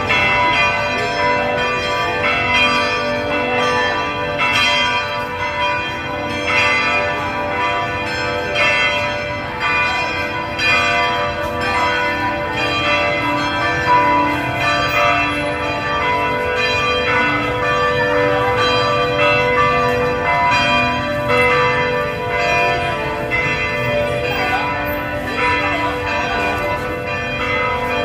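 Bells ringing continuously: a quick, steady run of strikes over many overlapping ringing tones, at an even level throughout.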